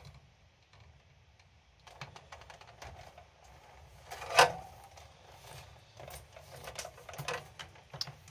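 Hands handling the wiring inside a UPS inverter unit: scattered light clicks and rustling of the wire bundles against the metal chassis, with one sharp, louder knock about four seconds in.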